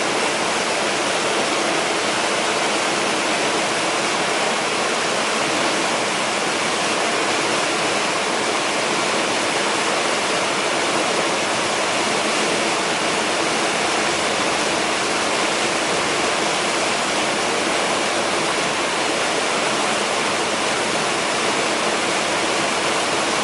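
Creek water running over rocks, a steady, even rush of moving water.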